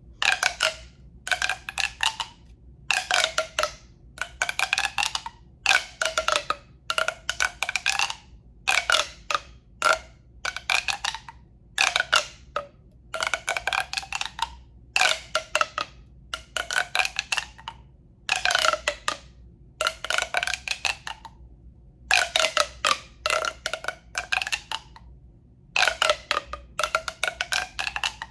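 Rapid tapping on a hollow tube in short bursts, each lasting about half a second to a second. Each burst rings with the tube's hollow resonance, which bends in pitch as it goes.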